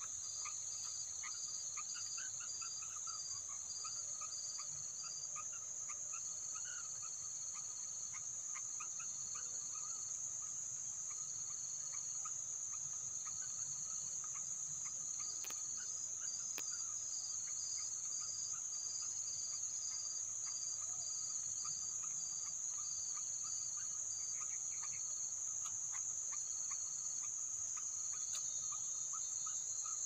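Steady high-pitched insect drone, with a second insect pulsing in short, evenly spaced bursts just below it, and faint scattered chirps underneath.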